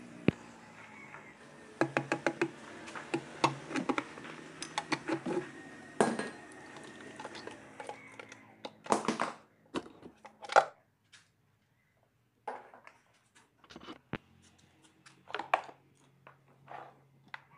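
Metal clinks and knocks as an engine's oil sump pan is worked loose and handled, many sharp strikes in quick succession. A few longer scraping sounds come about nine and ten seconds in, followed by scattered single knocks.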